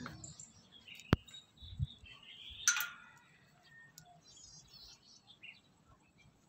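Small birds chirping in short, scattered high calls, with a single sharp click about a second in and a brief louder burst just before three seconds.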